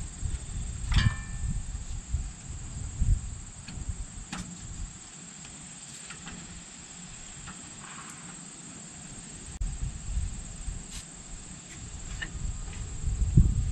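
Steady high trill of crickets. Low rumbles come and go, with a few knocks and a short metallic clink about a second in.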